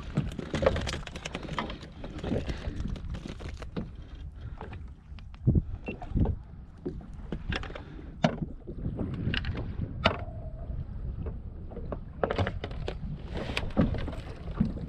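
Scattered knocks and clicks of fishing gear being handled on a kayak, with a sharp knock about half a second in and another about five and a half seconds in, over a steady low rumble of wind on the microphone.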